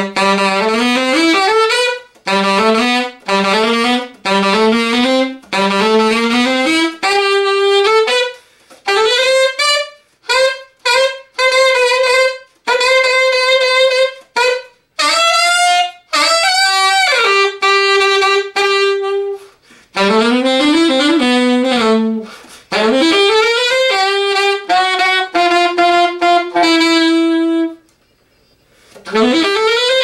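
Solo alto saxophone playing jazz phrases: quick runs of notes that climb and fall, a few longer held notes, short breaths between phrases and a brief rest near the end.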